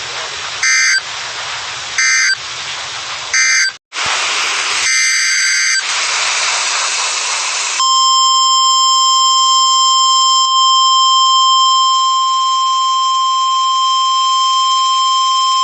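NOAA Weather Radio emergency alert signal over radio static: a few short buzzing digital data bursts (the SAME header that codes the alert), then, about eight seconds in, the steady high-pitched 1050 Hz warning alarm tone that announces a warning.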